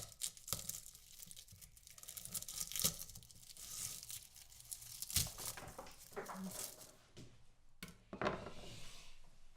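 Garlic being peeled by hand: dry papery skins crackling and tearing in irregular short bursts, with a few sharper taps.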